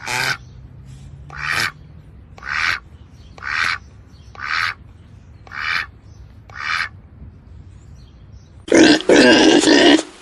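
Recorded animal calls: seven short calls about a second apart, followed near the end by a much louder, continuous stretch of animal noise.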